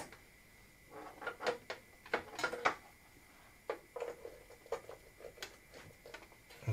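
Irregular clicks and knocks of plastic and metal as cables are plugged into an old PC's connectors and its parts are handled. There are about a dozen separate sharp clicks, some in quick pairs.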